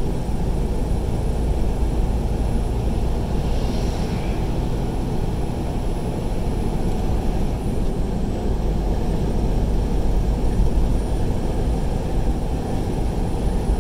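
Steady low rumble of a tractor-trailer's diesel engine and tyre noise, heard inside the cab while cruising at highway speed.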